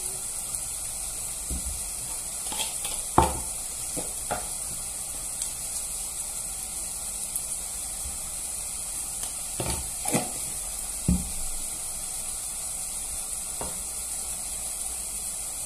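Oil and food sizzling steadily in a frying pan, with scattered knocks and clunks of a bottle, jar and utensils being handled and set down, the loudest about three seconds in and a few more around ten to eleven seconds.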